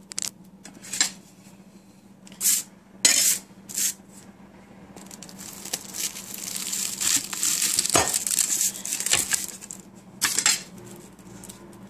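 A chef's knife cutting through baked flaky puff pastry pies, the crisp crust crackling and crunching: a few short sharp crunches, then one long crackling cut that builds over several seconds, with a sharp knock partway through.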